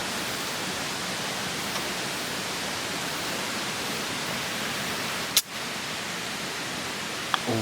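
Steady rushing hiss of a valley stream flowing, broken by one sharp click about five seconds in.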